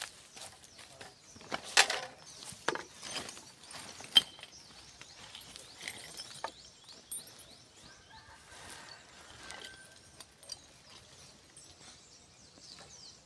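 Hammer striking nails into bamboo fence poles: a few irregular knocks, the loudest about two and four seconds in. Birds chirp in the background, more often in the second half.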